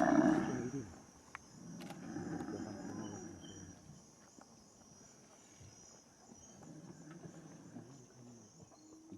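Large animal growling in three spells, the first the loudest and the later ones fainter, over a steady high chirring of insects.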